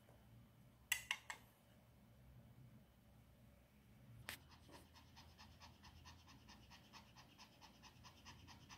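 Three sharp clicks about a second in and another near halfway, then a Maltese dog panting in a quick, even rhythm through the second half.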